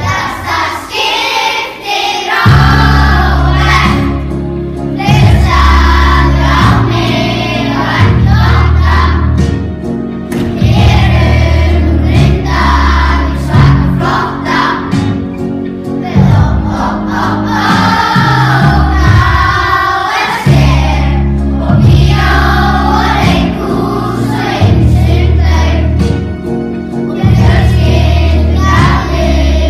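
A class of young children singing together in Icelandic, in unison, over an instrumental pop backing track with a strong bass line.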